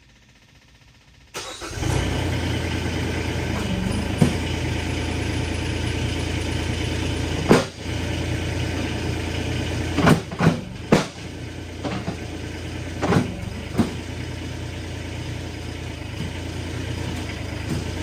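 Kubota SCL1000 compact track loader's engine starting about a second in, then running steadily, with several sharp knocks over the middle as its controls are worked.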